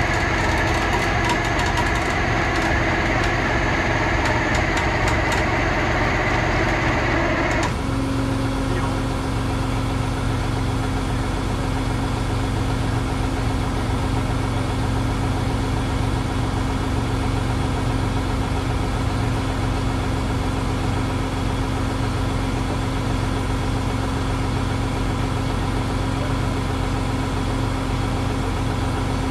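A vehicle engine running steadily. About eight seconds in, a higher whirring layer cuts off suddenly and a steady hum carries on.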